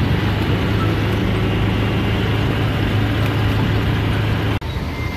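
Auto-rickshaw's engine running steadily with road noise while it drives, heard from the passenger seat; the sound cuts out for an instant near the end.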